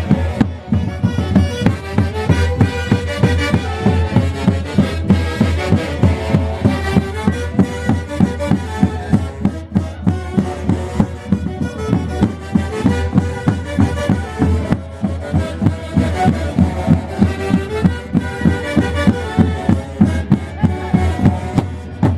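Andean orquesta playing a Santiago festival tune: wind instruments carry the melody over a steady, evenly spaced drum beat.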